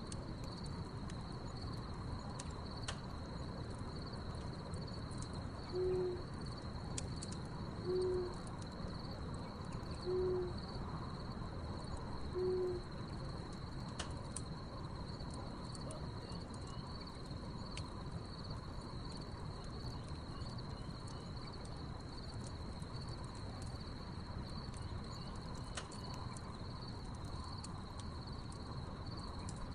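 An owl hooting four times, single low hoots about two seconds apart, over a steady high chirring of crickets and the sharp pops and crackles of a wood fire.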